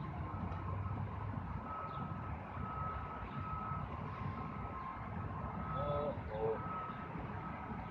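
A vehicle's reversing alarm beeping over and over, roughly once a second, above the steady rumble of city street traffic. Two short squeaks come about six seconds in.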